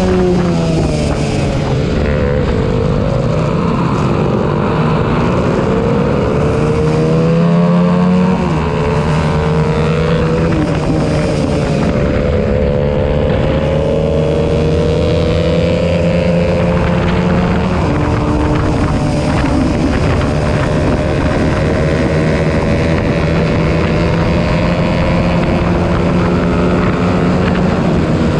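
Honda CBR125R single-cylinder four-stroke race engines at high revs, the on-board bike among a close pack of other 125s, several engine notes rising and falling with throttle and gear changes.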